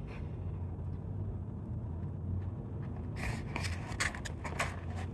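Crackly crunching and rustling of a fried-chicken sandwich, its fries and the paper wrapper being handled and bitten into, starting about three seconds in as a run of short crackles. A steady low hum lies underneath.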